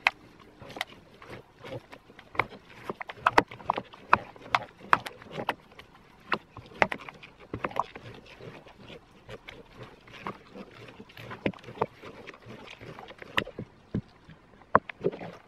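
Silicone spatula folding beaten egg whites into thick cheesecake batter in a mixing bowl: irregular short scrapes and slaps of batter against the bowl, a few every second.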